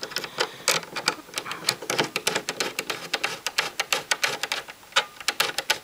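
Hand screwdriver turning a screw into the plastic back of a Kriesler valve radio cabinet: a quick, uneven run of sharp clicks and ticks as the screw threads in and the tip slips and catches in the screw head.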